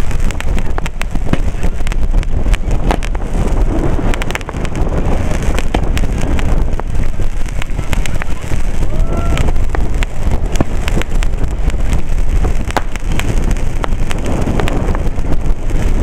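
Fireworks barrage: many shells launching and bursting in quick succession, a dense stream of sharp cracks and pops over a steady low rumble.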